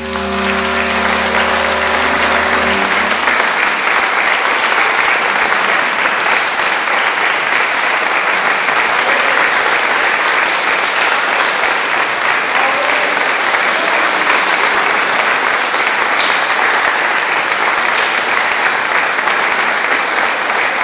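Audience applauding steadily after the performance ends. Over the first three seconds a final held chord from the accompanying musicians sounds and then stops.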